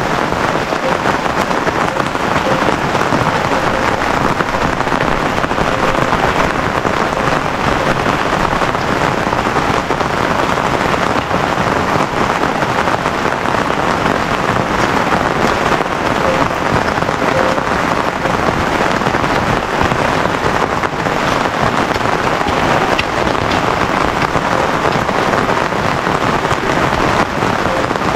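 Steady heavy rain falling, a dense, unbroken patter of drops.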